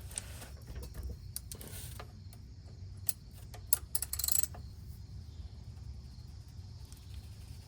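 A wrench clinking on the oil drain plug of a Toyota Prius's engine oil pan, a few sharp metallic clicks and a short run of clinks as the plug is broken loose, over a low steady hum.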